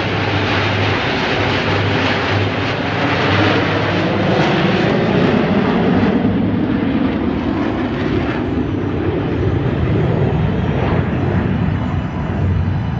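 Jet roar of the Frecce Tricolori's Aermacchi MB-339 trainers (Rolls-Royce Viper turbojets) flying past, loud and continuous with its pitch sliding down as they pass. It eases slightly about two-thirds of the way through.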